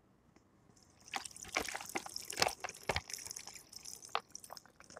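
Drink being poured from a plastic bottle into a plastic cup: an irregular run of splashes and glugs starting about a second in and tailing off near the end.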